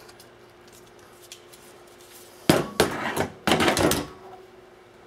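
LWRC REPR rifle set down on a wooden table: a few sharp knocks and a scraping clatter of metal and polymer on wood about two and a half seconds in, lasting about a second and a half.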